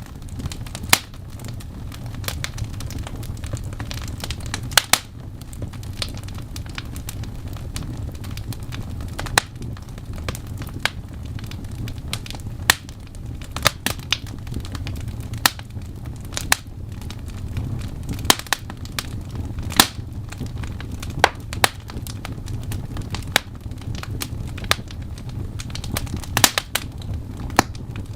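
Fire burning in a fireplace: a steady low rumble with frequent sharp, irregular crackles and pops.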